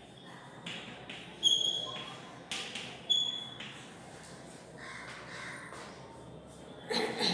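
Chalk writing on a blackboard: four sharp taps and scrapes in the first three seconds, some with a short high squeal. A soft rustle follows around five seconds in.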